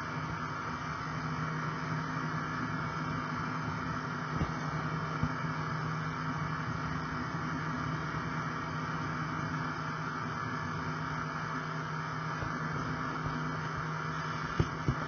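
Model train running along the track: a steady electric motor hum with rolling wheel noise, and a few sharp clicks as the wheels cross rail joints and points, two close together near the end.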